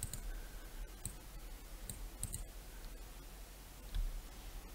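A few scattered faint clicks from a computer mouse, the last and loudest about four seconds in.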